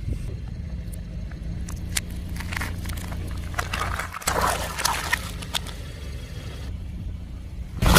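Car engine running low while a tyre rolls over and crushes objects, giving scattered cracks and crackles that come thickest around the middle.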